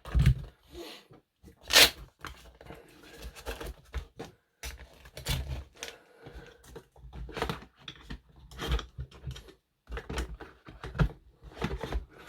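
Hand tools being packed back into a Veto TP3b tool bag: an irregular run of clicks, knocks and rustles as the tools are slid into the bag's pockets, with one sharper knock about two seconds in.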